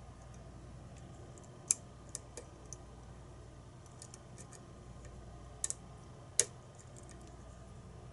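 Lock pick and tension tool working in a pin-tumbler challenge lock: scattered small, sharp metallic clicks and ticks as the pins are probed, with two louder clicks, one about two seconds in and one past six seconds.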